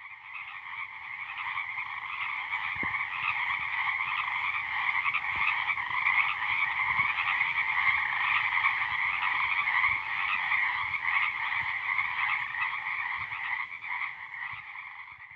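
A dense chorus of calling frogs, steady throughout, fading in at the start and fading out near the end.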